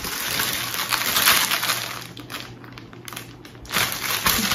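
Plastic packaging on a pack of braiding hair crinkling as it is picked up and handled. It is loudest for the first two seconds and again near the end.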